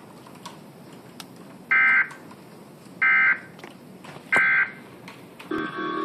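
Emergency Alert System end-of-message data signal: three short bursts of shrill, warbling digital tones, about 1.3 s apart, marking the close of a severe thunderstorm warning relayed from NOAA Weather Radio.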